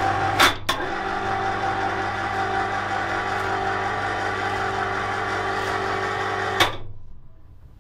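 Electric wire-rope hoist running steadily with a mains-type hum as it lifts a heavy electric motor on a chain. There are a couple of sharp clicks in the first second, and it stops with a click near the end.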